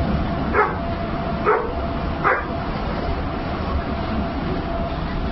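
Three short, yelping dog-like barks, each dropping in pitch, about a second apart, made by a person in a dog costume imitating a dog. Under them runs the steady rumble of a subway car.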